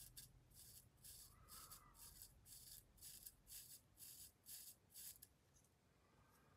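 A pocketknife blade shaving arm hair: a quick run of faint, soft scraping strokes, about two or three a second, that stop about five seconds in.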